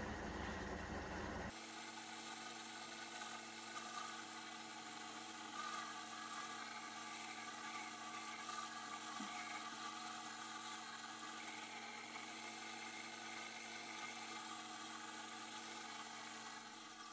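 Wood lathe motor running steadily with a bowl spinning on it, a steady hum with a few held tones, while a cloth is held against the turning wood to finish it. The sound cuts off at the end.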